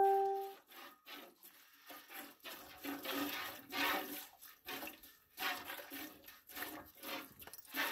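Hand-milking a Brown Swiss cow: streams of milk squirting from the teats into a stainless steel stockpot, short hissing spurts about twice a second as two milkers work. A metallic ring dies away in the first half second.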